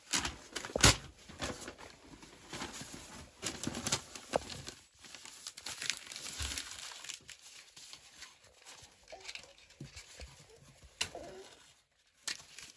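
Dry twigs and firewood crackling and snapping irregularly, with short bursts of rustling; the sharpest snap comes about a second in and a few more near the end.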